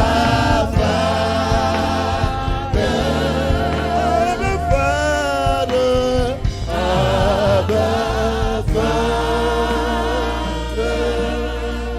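Gospel worship singing with instrumental backing: a lead voice holds long, wavering sung notes over steady bass notes, in phrases with short breaks between them.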